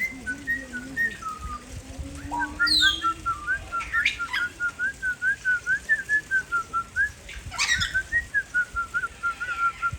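A person whistling to a parrot: a quick, even run of short warbling notes, about three or four a second, starting a couple of seconds in. Two sharp clicks fall in the middle.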